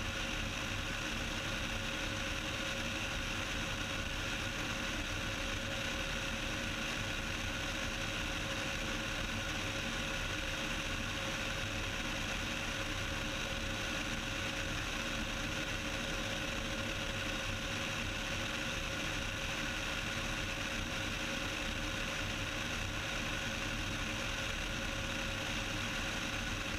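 Steady drone of a Cessna 172's piston engine and propeller in cruise flight, heard inside the cabin, holding an even pitch and level throughout.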